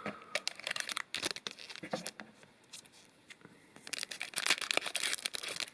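Crinkling and crackling of a foil booster-pack wrapper being handled, in two spells of irregular crackles with a short quiet gap between.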